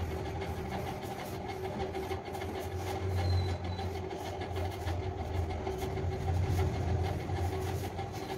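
Electric hair clipper buzzing steadily while shaving hair off a head. Its low hum grows louder and softer at moments.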